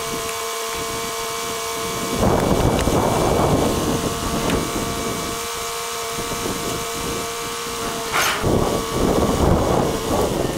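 Small tractor's engine running with a steady whine, swelling louder twice.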